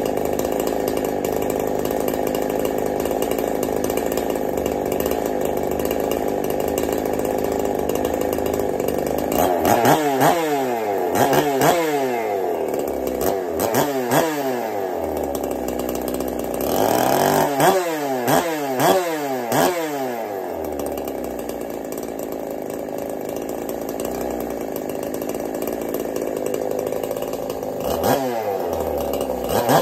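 Freshly assembled, ported Neotec NH872 two-stroke chainsaw (a Husqvarna 372-platform clone) idling steadily, then revved in quick throttle blips. There is a run of about five blips about ten seconds in and another run of three or four about seventeen seconds in, each dropping back to idle. More blips begin near the end.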